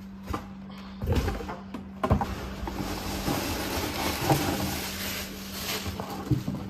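Cardboard box and paper packaging being handled while a toaster is unboxed: a few knocks of the box in the first two seconds, then the wrapping rustling and crinkling.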